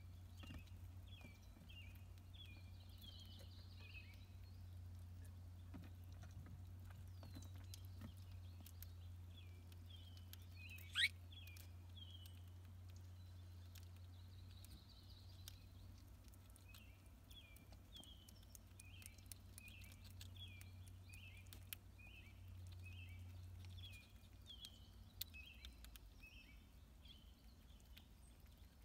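Faint outdoor ambience: a small bird chirping over and over in short falling notes, about one or two a second, over a steady low hum. Scattered faint clicks, with one sharp click about eleven seconds in.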